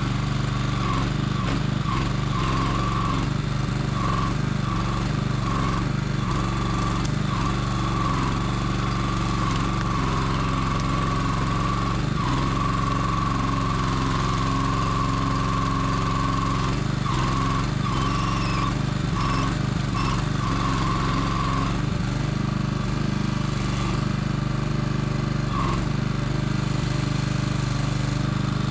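Small engine running steadily under the hydraulic log loader crane as it lifts and swings a log, with a high whine that cuts out and returns again and again as the crane's functions are worked.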